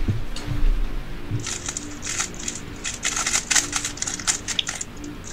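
A 3x3 speedcube being turned fast in a speedsolve: a rapid, uneven clatter of plastic clicks that starts about a second and a half in, after a low thump at the very start.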